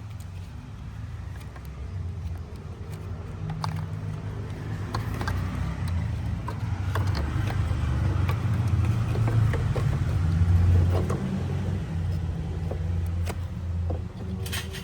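Refrigerator condenser fan motor running with a low, wavering hum, with scattered light clicks and knocks over it.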